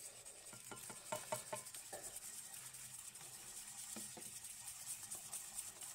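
Wire whisk stirring flour, eggs and milk in a stainless steel bowl: faint scraping with a few light ticks, a cluster about a second in and another about four seconds in.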